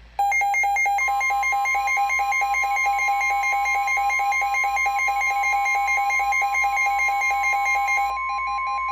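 NOAA Weather Radio warning alarm: a steady 1050 Hz tone that starts about a second in, under a rapidly pulsing two-pitch electronic alarm. The alarm tone announces a severe thunderstorm warning about to be read.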